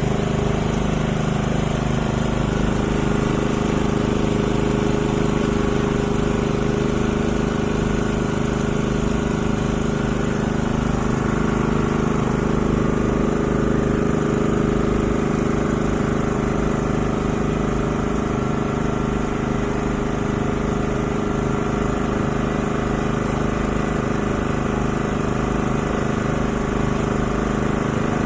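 A machine engine or motor running steadily with an even hum that holds the same pitch throughout.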